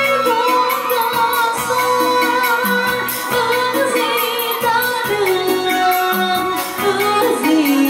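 Music with a singer: a sung melody over bass notes and a steady beat.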